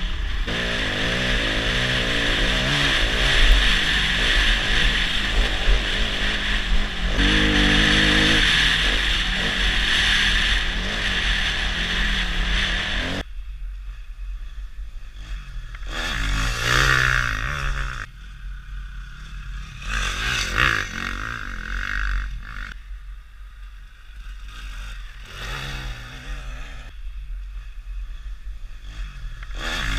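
Motocross bike engine revving hard as it is ridden over a dirt track. About 13 seconds in it drops to a low idle, and the throttle is blipped three or four times.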